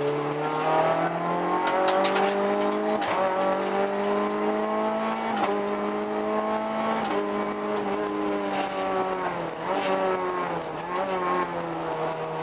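Rally car's engine heard from inside the cabin at speed on a special stage, its note climbing and then dropping sharply several times at gear changes.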